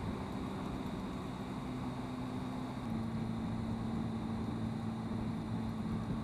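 Motorcycle engine running at a steady cruise under wind and road noise. The engine note steps slightly lower about three seconds in.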